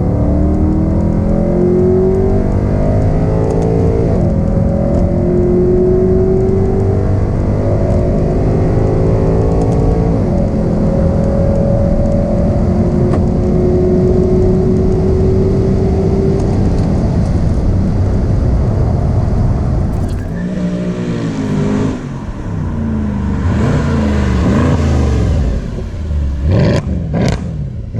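Mercedes C63's naturally aspirated 6.2-litre V8, running without catalytic converters, pulling at full throttle. Its pitch climbs, drops at gear changes about four and ten seconds in, then rises slowly through a long pull. About twenty seconds in the throttle comes off, and the revs fall and rise in a series of quick blips as the car slows.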